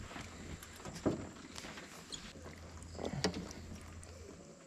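Low steady hum of the boat's electric trolling motor, stopping shortly before the end, with a couple of brief knocks as a small trahira is landed.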